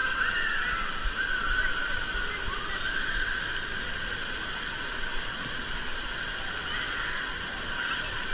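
Indoor water-park ambience: a steady wash of running and lapping pool water, with faint distant children's shouts and squeals echoing through the hall.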